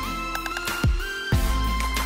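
Background music with held tones and repeated low drum hits.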